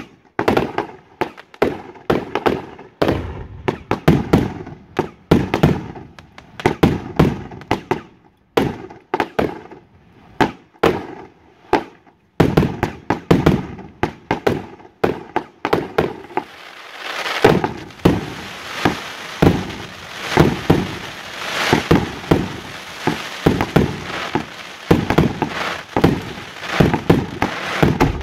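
Professional display fireworks going off: a rapid series of sharp bangs from shells and multi-shot bursts. From about halfway the bangs come faster and a steady hiss runs between them.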